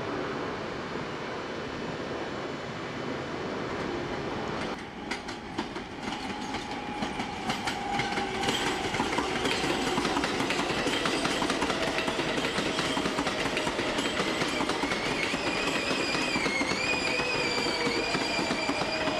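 Subway train noise: a steady rumble for the first few seconds, then an R142A subway train rolling past with its wheels clacking over rail joints. A whine slowly falls in pitch, and near the end a wavering high wheel squeal joins in.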